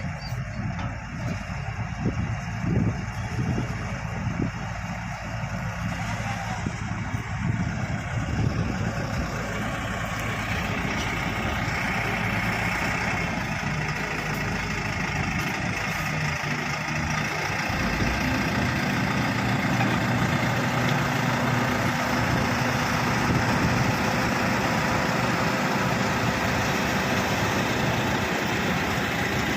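Bulldozer's diesel engine running steadily, getting louder about ten seconds in and changing pitch a little later.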